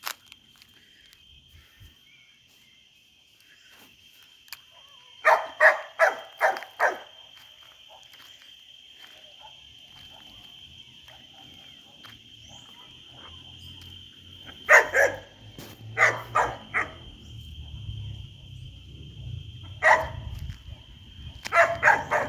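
Dog barking in bursts: a run of about five barks about five seconds in, another volley around fifteen seconds, a single bark near twenty seconds and a quick run near the end.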